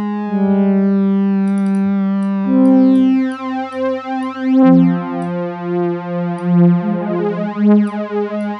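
Native Instruments FM8 FM-synthesizer pad playing sustained chords that change about every two seconds. A random, slow pitch wobble (vibrato) is built into the patch. It is layered with detuned unison voices, which thicken the tone.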